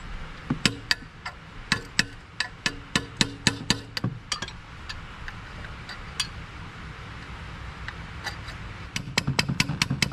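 Hammer blows on a steel punch held against a diesel engine's belt pulley, driving the pulley forward: sharp metal strikes, two or three a second for about four seconds, a few single blows, a pause, then a quicker run of strikes near the end.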